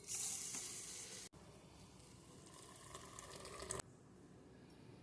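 Coffee mixture being poured, a steady hissing splash that is loudest at first and cuts off sharply near the end.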